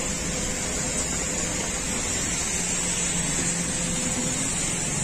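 Steady industrial machinery noise with a faint, even hum running through it.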